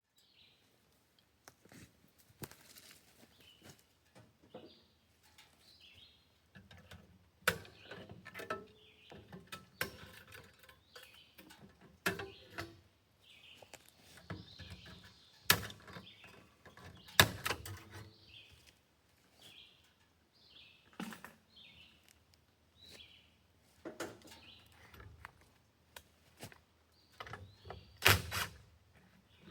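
Birds chirping repeatedly in short calls, with scattered sharp knocks and clicks.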